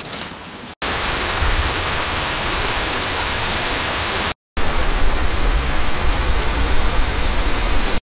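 AudioGen AI-generated rain sound effects played in turn. The end of a soft drizzle; after a short silence about a second in, steady rain; after another short silence about halfway through, louder heavy rain with a deeper rumble.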